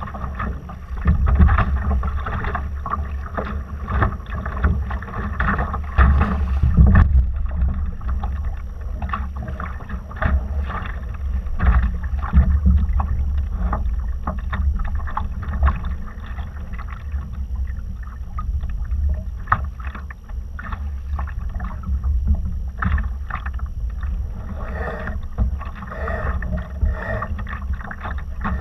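Hull of a Laser sailing dinghy under way, water splashing and slapping against it in many short irregular bursts, over a constant low rumble of wind on the microphone.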